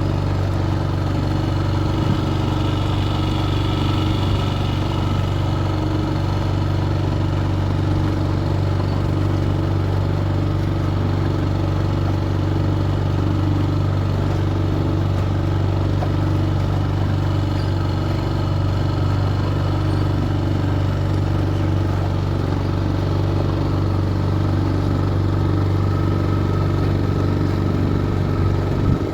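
Boat engine running at a steady speed, a constant low drone that does not change in pitch.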